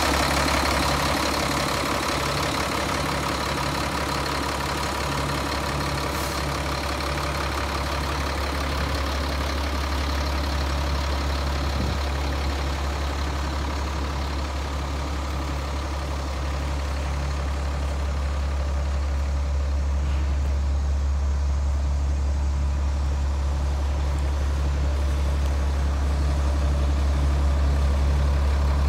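Caterpillar 3126 inline-six turbo diesel in a Freightliner ambulance idling steadily, a constant low hum with no revs.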